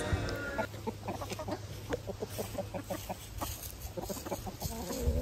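A flock of backyard chickens clucking, a steady stream of short, quick clucks from several birds.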